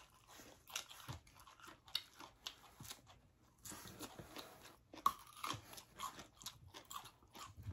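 Faint close-up chewing with irregular crunchy bites and small clicks: people eating salted ba khía crab, a brined Mekong Delta mud crab with its shell on, wrapped in raw greens.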